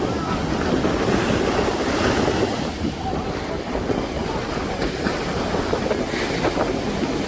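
Sea waves breaking and washing onto a sandy beach in a continuous rushing surf, with wind buffeting the microphone.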